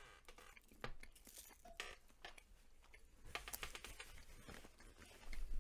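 Faint chewing of a cherry cordial Hershey's Kiss close to the microphone, with scattered small clicks of the mouth working the chocolate.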